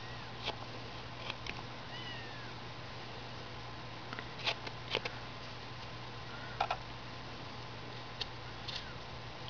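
A carving knife cutting into wood in short strokes, giving scattered faint clicks and cuts as the bottom of a carved foot is trimmed and rounded. A few short, high squeaks come between the cuts, near the start, about two seconds in and near the end.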